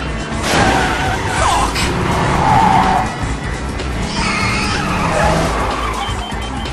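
Film car-chase soundtrack: several tyre squeals over the running of car engines, with an action music score underneath.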